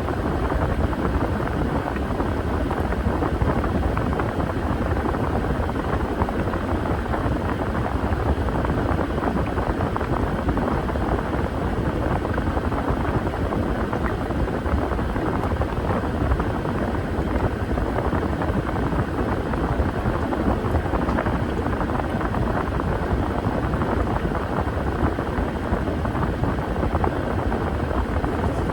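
Washing machine running with a steady, even drone and no separate knocks or breaks.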